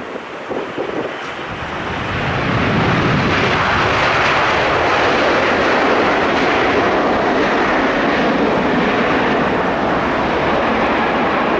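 Jet engines of a Boeing 787 airliner on the runway: a loud, steady roar that swells about two seconds in and then holds. Gusts of wind buffet the microphone at the start.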